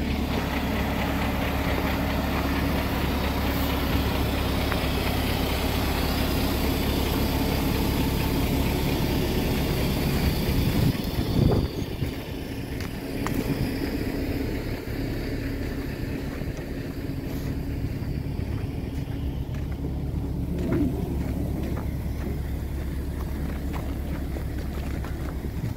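MAZ truck's diesel engine running steadily to drive the HMF 2120 loader crane's hydraulics during unloading. About eleven seconds in the engine note sweeps and briefly gets louder, then settles a little quieter, with a smaller shift about twenty seconds in.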